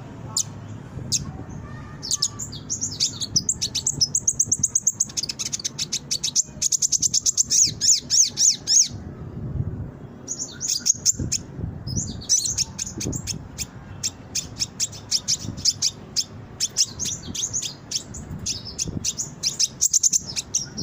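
Kolibri ninja (konin) sunbird singing in a lively, fast stream of high, rapidly repeated chirps and trills, broken by brief pauses. This is a lure song used to make captive konin respond and sing.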